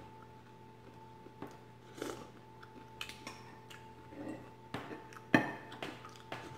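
Spoon scraping and clinking against a soup bowl in scattered short taps, the loudest clink about five seconds in.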